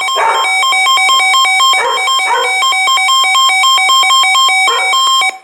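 Emergency alert attention tone for a severe thunderstorm warning: a loud electronic two-tone beeping that pulses in a fast repeating pattern, then cuts off suddenly just before the end.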